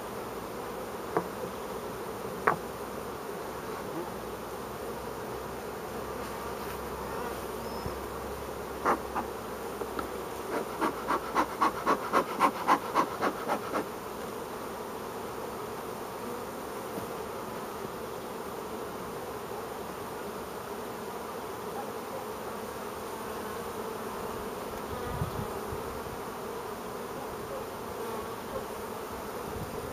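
Carniolan honey bees buzzing around opened hives, a steady hum. About ten seconds in, a quick run of about a dozen loud rhythmic strokes, roughly four a second, with a few single clicks before it.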